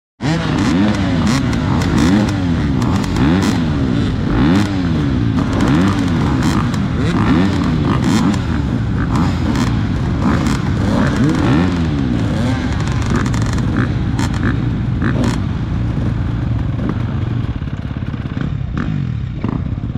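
Dirt bike engine revving up and falling back over and over, about once a second, as it is ridden hard, steadier in the second half, with scattered knocks and clatter.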